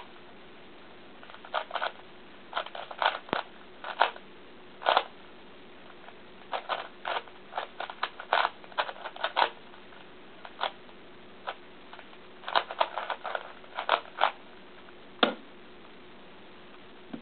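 Sheng En Type F-II 3x3x3 speedcube being turned: quick clusters of plastic clicks and clacks with short pauses between them.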